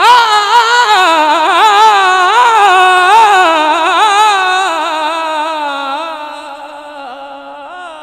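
A man's solo voice singing a naat: one long, ornamented held note whose pitch wavers up and down, with no instruments, fading away over the last few seconds.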